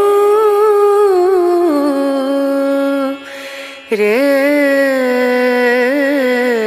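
Background music: a single voice singing long, held notes with pitch ornaments in an Indian devotional style, with a short break about three seconds in.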